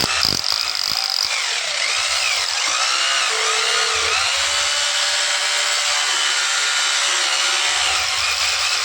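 Powertex RH 2-20 rotary hammer drill running steadily with a harsh, high grinding noise, with a wavering squeal about two to four seconds in.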